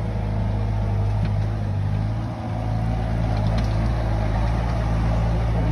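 Compact track loader's engine running steadily as the machine manoeuvres while digging out a tree stump.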